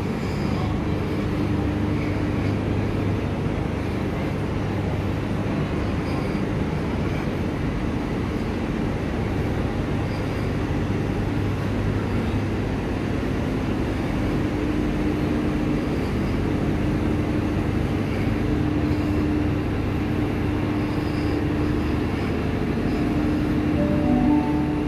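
Train of stainless-steel passenger carriages rolling slowly along the track: a steady low rumble with a constant hum.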